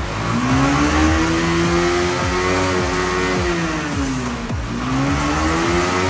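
Yamaha R15 V3 motorcycle's single-cylinder engine revving hard in gear. The pitch climbs and holds, drops about four seconds in as the gear is shifted, then climbs again.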